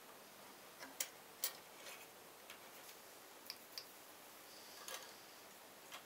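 Scattered faint clicks and taps, about half a dozen, from pliers and copper wire being handled against a wooden wire-stripping jig.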